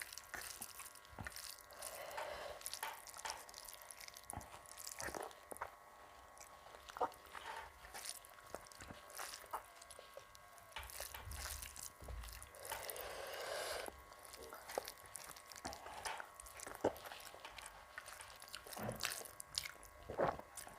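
Soft, quiet chewing and mouth clicks from eating rice with green jackfruit curry, with scattered small clicks and a short, slightly louder rustle about two thirds of the way through.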